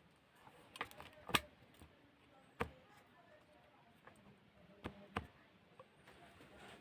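Scattered light clicks and knocks, about six in all with a close pair near the end, from handling small parts or tools on a workbench.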